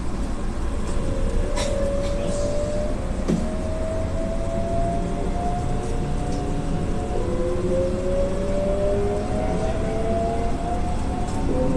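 Keihan 7200-series electric train pulling away and accelerating, its traction motors whining in a steadily rising pitch, with a fresh set of rising tones starting about seven seconds in. Wheel and running rumble lies underneath, with a couple of sharp clicks from the wheels over the track.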